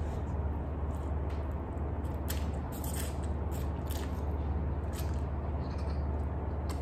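A person slurping and chewing instant noodles eaten with chopsticks: a string of short, wet mouth sounds, busiest about two to three and a half seconds in, over a steady low hum.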